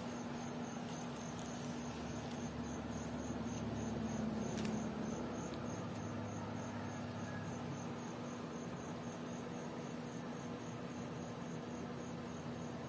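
A cricket chirping evenly, about three high chirps a second, over a steady low room hum.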